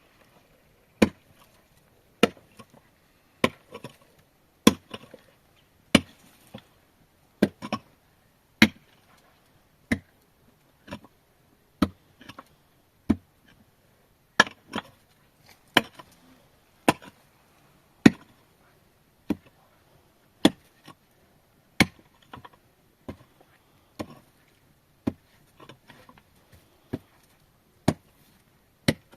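A steady run of sharp chopping strikes, about one every second and a bit, some followed by a lighter click.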